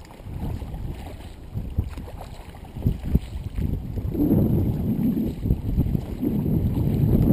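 Double-bladed kayak paddle strokes splashing water on alternate sides of the kayak, with wind buffeting the microphone. The wind rumble grows louder in the second half.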